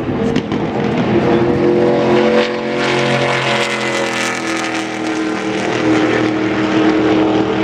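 Stock car V8 engines running at idle, a loud, steady rumble.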